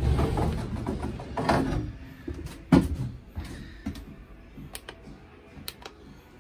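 Rustling and knocks from someone moving about inside an enclosed car trailer, the loudest a sharp knock about three seconds in. Near the end there are a couple of sharp clicks as buttons on a wall switch panel are pressed.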